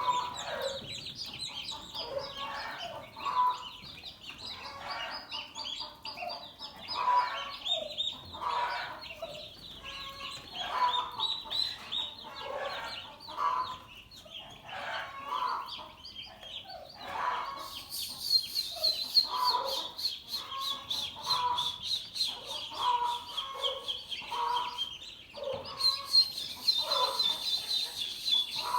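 Turkeys calling, one call every second or two, over a constant high-pitched twittering. A fast, even high pulsing joins about two-thirds of the way through.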